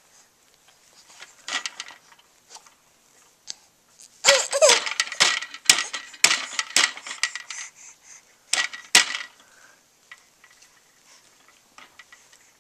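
Hard plastic toys clattering and knocking as a baby bangs and shakes them, in a busy burst of sharp clicks from about four to nine seconds in, with a few lighter taps before and after.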